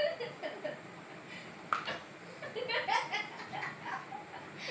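People chuckling and giggling quietly, with a few low voiced sounds and one short sharp click about a third of the way in.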